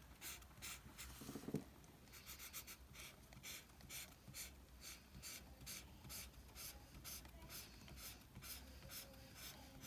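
Black felt-tip marker scratching across sketchbook paper in short back-and-forth colouring strokes, about three a second, faint.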